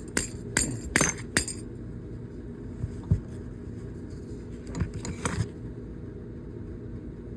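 Hammer blows on the hydraulic pump's stuck steel shaft, trying to knock it out: four quick ringing metallic strikes in the first second and a half, then a few lighter taps around three and five seconds in.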